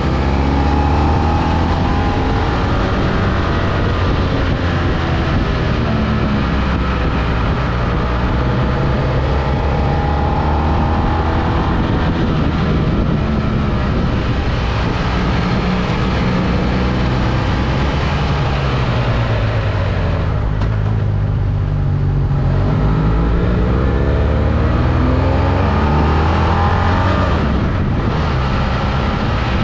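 Engine of a moving road vehicle under way, over steady road and wind noise. Its pitch rises and falls with speed, sinking about twenty seconds in and then climbing again as it accelerates.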